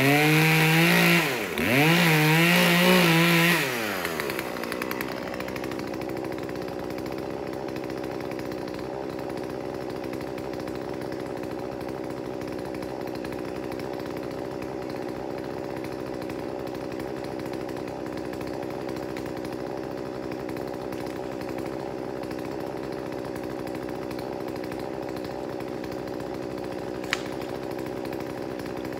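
Chainsaw revved hard twice, its pitch rising and falling, then settling about four seconds in to a steady idle. A single sharp click sounds near the end.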